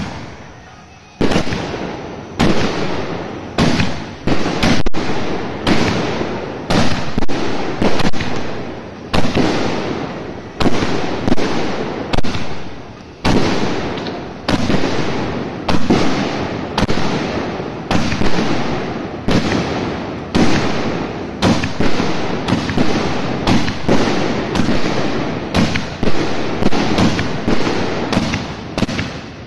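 A 66-shot King of Willows firework cake firing its shots one after another: a steady run of sharp bangs, about one to two a second, each trailing off before the next.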